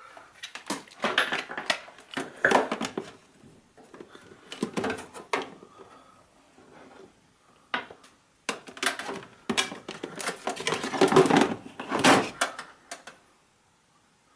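Handling noises from a dismantled cooker hood: irregular clicks, taps and rattles of its parts, wires and test leads being moved about, in several bursts with short pauses.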